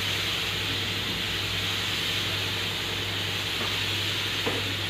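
Compressed-air spray gun hissing steadily as it sprays clear coat onto a car door at strong air pressure, with a steady low hum underneath.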